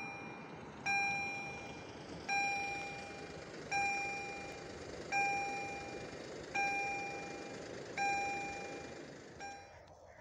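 Level crossing warning bell ringing, one ding about every one and a half seconds, each ring fading before the next, as the red lights flash and the barriers lower for an approaching train. The last ding is cut short near the end.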